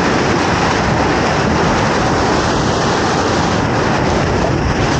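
Whitewater rushing and splashing close around a kayak running down a rocky slide, a loud steady wash of water noise.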